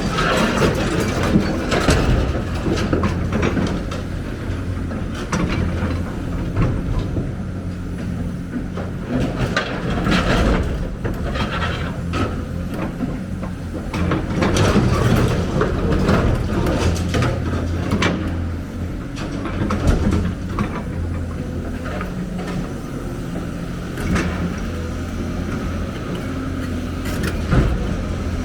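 Excavator's diesel engine running steadily under load, with repeated clanks and knocks from the machine at work.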